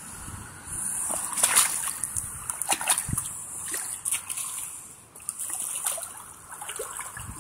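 Shallow pond water splashing and sloshing in irregular surges, with scattered small knocks, as someone wades at the muddy edge.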